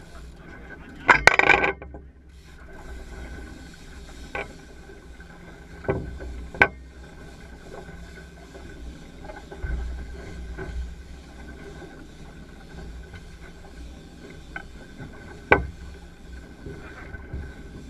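Steady low rumble aboard a sport-fishing boat at sea, with a loud clattering burst about a second in and several sharp knocks scattered through, one of the louder ones near the end.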